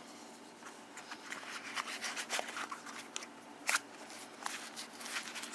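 Handling noise from a stainless-steel folding multi-tool: irregular small metallic clicks and scrapes, with one sharper click about two-thirds of the way through.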